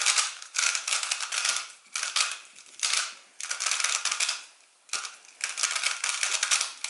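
GAN 356 i smart 3x3 speed cube being turned fast during a timed solve: rapid clacking of its plastic layers in quick runs of turns, with short pauses between them.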